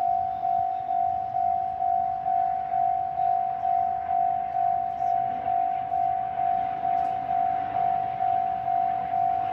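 Japanese railway level-crossing warning bell ringing: an electronic clang on one steady pitch, repeating about twice a second, the signal that the crossing is closed for an approaching train.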